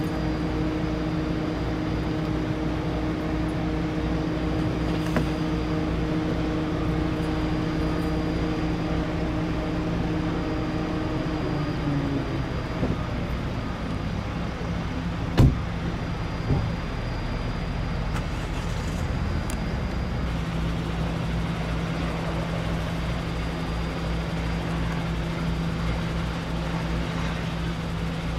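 Diamond DA-42 Twin Star's engines running steadily with a hum whose pitch drops about twelve seconds in. A sharp click comes a few seconds later, and a lower steady hum returns near twenty seconds.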